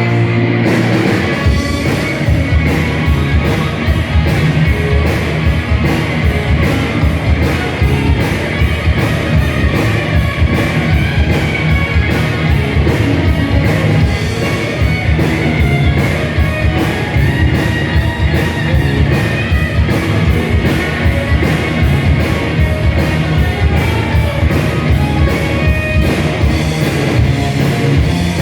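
A heavy metal band playing live: distorted electric guitars over very fast, continuous drumming, with some vocals.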